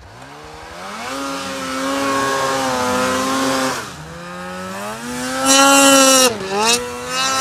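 Snowmobile engine revving hard under throttle: the pitch climbs and holds, drops off about four seconds in, climbs again to its loudest and hissiest near six seconds, dips briefly and rises once more near the end.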